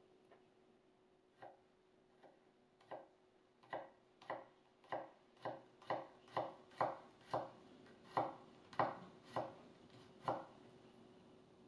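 A VG-10 Damascus petty knife chopping garlic on a wooden cutting board: a few spaced knocks of the blade on the board, then a steady run of about two knocks a second that stops about ten seconds in.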